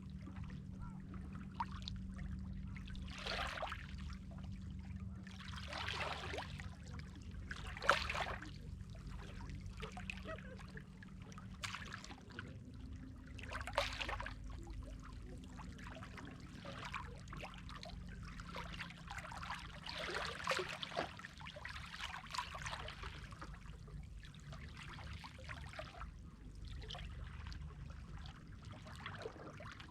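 Seawater splashing and lapping in irregular surges every few seconds, over a steady low hum.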